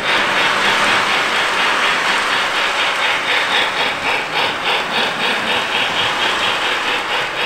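Lionel LionChief Hogwarts Express O-gauge model steam locomotive running around its track, its onboard sound playing a steam-chuff hiss that pulses about four to five times a second.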